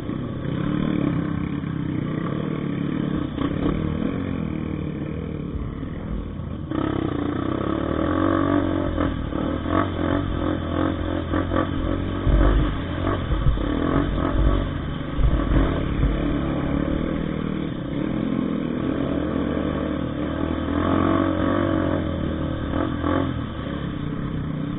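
Trail motorcycle engine running and revving unevenly, with clattering throughout. It gets louder about seven seconds in.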